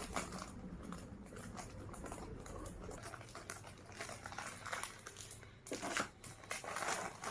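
Faint, intermittent rustling and crinkling of snack packaging being handled, with a few soft taps, a little busier near the end.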